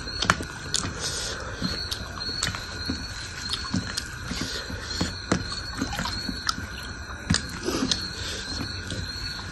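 Close-miked eating sounds: chewing and mouth smacks while fingers mix rice and singju salad on a steel plate, heard as many irregular sharp clicks and soft pops.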